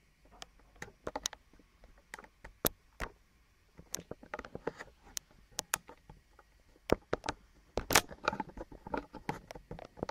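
Handling noise from a handheld camera being moved and repositioned: irregular clicks and knocks, with a denser spell of knocking and rustling about eight seconds in.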